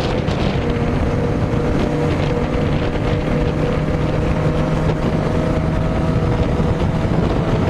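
Motorcycle engine running at steady cruising revs, its pitch creeping slightly higher in the second half, with wind rushing over the microphone.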